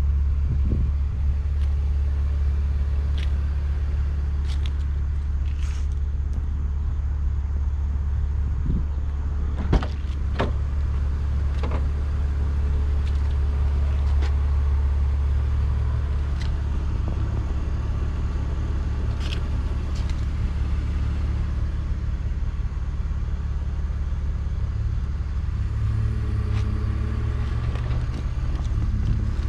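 A 2003 BMW Z4 2.5i's 2.5-litre inline-six idling steadily as a low, even rumble, with a couple of sharp clicks about ten seconds in.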